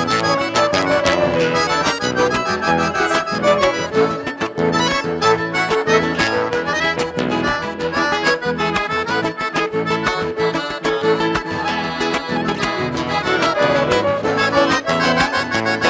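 Live gaúcho folk dance music led by accordion, playing a lively tune with a steady, even beat.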